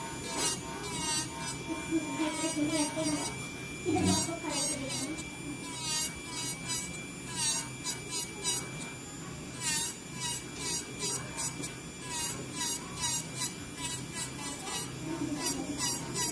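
Brunson electric nail drill (e-file) running, a steady motor whine that wavers and dips again and again, with scratchy grinding from the bit filing off gel polish.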